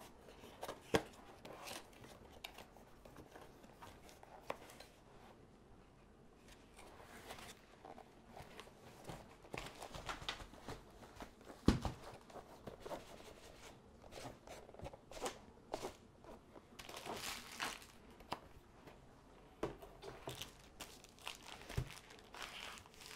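Cardboard kit box being opened and its cellophane-wrapped contents handled: irregular rustling, crinkling and scraping of cardboard and plastic wrap, with a sharp knock about halfway through and another near the end.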